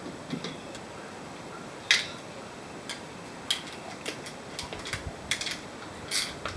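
Scattered sharp clicks and taps from an LED floodlight and its mounting bracket being handled and fitted together by hand, the loudest about two seconds in.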